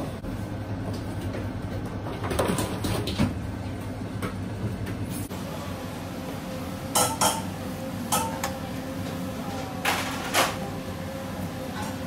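Metal baking trays clanking against each other and against metal surfaces. The sharper clanks in the second half ring briefly. A steady low machine hum runs underneath.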